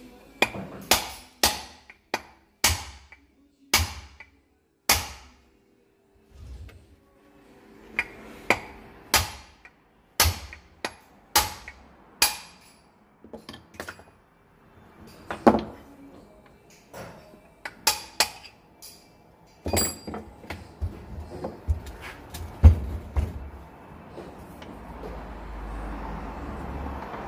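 Hammer blows on a steel socket extension used as a drift against an aluminium gearbox casing, driving out the clutch release fork shaft that corrosion has seized solid. A dozen or so sharp metal strikes at uneven intervals, then scattered lighter knocks and clatter as the parts are worked free.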